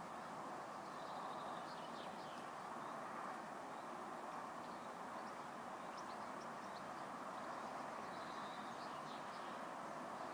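A steady, even outdoor hum, with small birds chirping briefly now and then over it.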